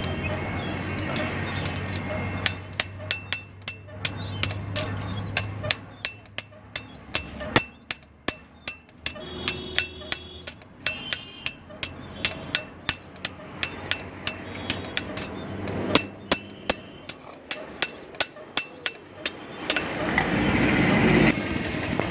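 Blacksmith's hand hammer striking steel on an anvil while a kachi (sickle) blade is forged: a long run of sharp, ringing metal-on-metal blows, at times two or three a second, broken by short pauses.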